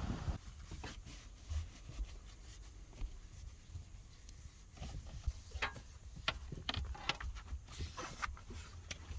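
A cloth being wiped over the inside of a van's window glass: a series of short rubbing, squeaky strokes with scattered light knocks, busiest in the second half.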